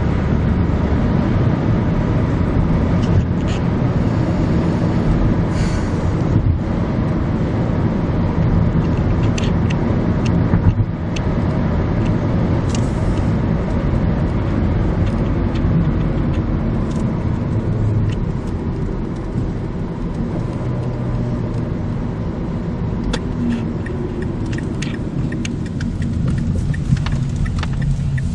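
A car driving: steady low road and engine rumble, with scattered light ticks that come more often near the end.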